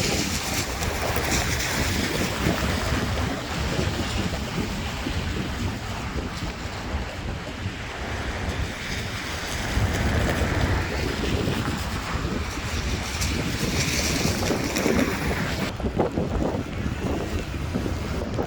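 Wind buffeting the microphone: a steady rushing noise with a gusty low rumble that rises and falls.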